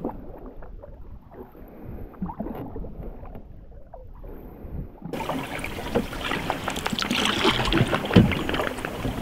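Canoe paddling in calm water: the wooden paddle dips and pulls through the water, with drips and small splashes. About five seconds in the sound turns fuller and louder, with frequent small splashes and knocks.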